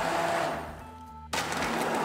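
Electric blender puréeing vegetable soup, over background music. The motor noise dies away about halfway through, then comes back suddenly.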